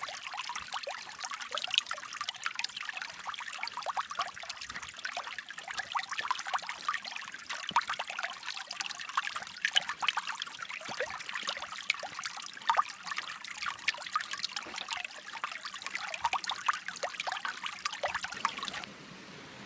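Creek water trickling and splashing over stones: a dense, busy patter of small bright plinks. Near the end it changes abruptly to a softer, steady rush.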